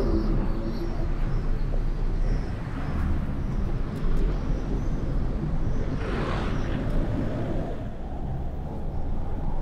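Steady low rumble of road and wind noise from a vehicle driving slowly through city streets, with a brief louder swell of passing traffic about six seconds in.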